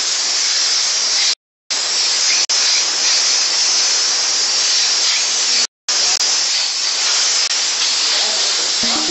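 Wall-mounted steam car washer blasting steam from its nozzle onto a car's door and window in a steady, loud hiss. The sound cuts out completely twice for a moment.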